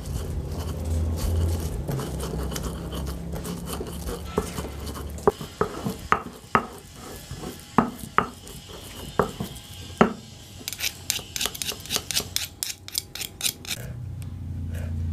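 Stone pestle grinding candlenuts, garlic, salt and coriander seeds into spice paste in a stone mortar (cobek). It starts as a steady rubbing and grinding, then comes a series of sharp knocks of stone on stone. A fast run of quick clicks follows near the end.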